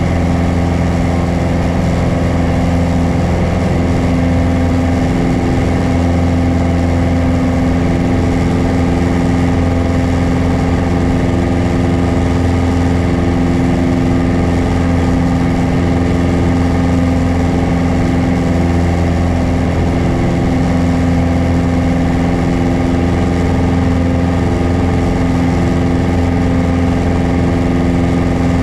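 Piper PA-28 Warrior's four-cylinder Lycoming engine and propeller running steadily at cruise power in flight, heard from inside the cabin.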